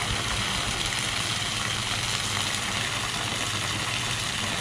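Steady rushing of hot-spring water pouring from an inlet pipe into a rock pool, with a low steady hum underneath.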